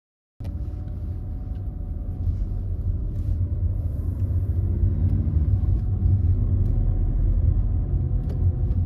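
Car driving, heard from inside the cabin: a steady low rumble of engine and road noise that cuts in abruptly a moment after the start.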